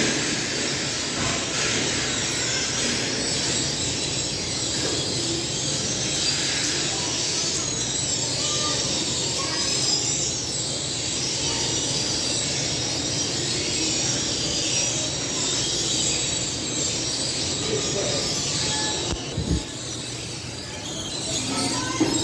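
Steady machinery noise of a commercial bread oven and its extractor hood running, an even rushing noise with a low hum under it. Near the end it dips briefly and there is a single knock.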